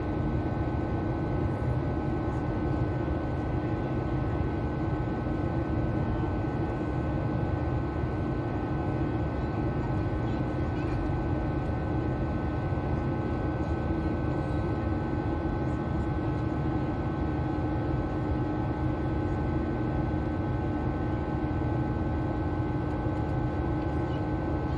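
Steady cabin drone of an airliner in flight: engine and airflow noise, a low even rush with several constant hum tones over it.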